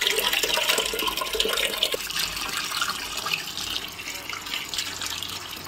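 Tap water running steadily into a sink: a continuous splashing rush.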